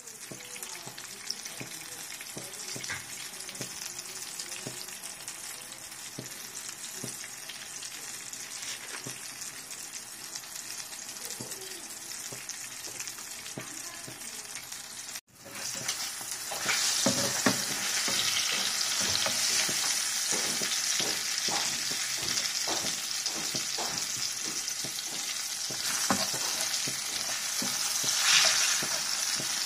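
Aubergine slices, coated in turmeric, chilli and salt, shallow-frying in oil in a non-stick pan, with a steady sizzle. The sound drops out for a moment about halfway. It then comes back louder, with many sharp crackles of spitting oil.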